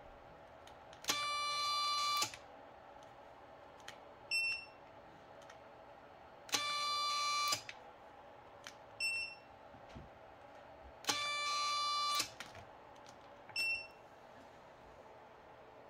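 Futaba A700 digital servo straining at stall against a force gauge in three pushes of about a second each, a steady high electric whine. Each push is followed about two seconds later by a short, higher beep, over a faint steady hum.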